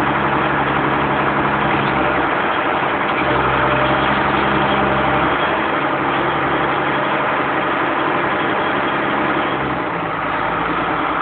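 Chisholm Ryder Multi Density self-propelled bean harvester running, its engine note over a dense clatter of machinery. The engine pitch shifts several times.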